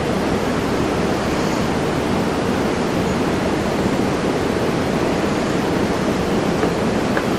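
Steady rushing noise with no pitch, even and unchanging throughout.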